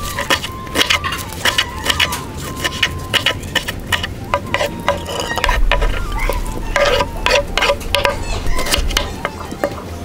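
Kitchen knife chopping leafy greens on a wooden cutting board, a quick, irregular run of sharp taps as the blade strikes the board.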